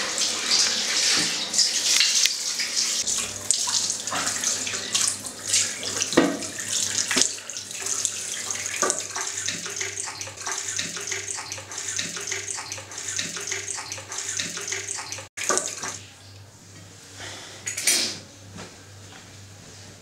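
Tap water running into a bathroom sink, with repeated splashes as a man washes his face. The water stops abruptly about three-quarters of the way through, leaving a low steady hum, and near the end a towel is rubbed briefly over the face.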